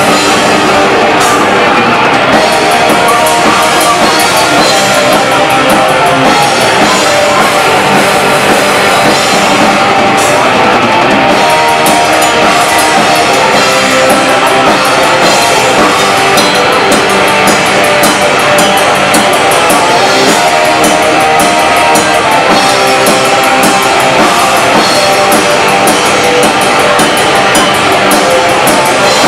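Black metal band playing live: loud, dense distorted electric guitars over a drum kit, with cymbals ringing continuously on top.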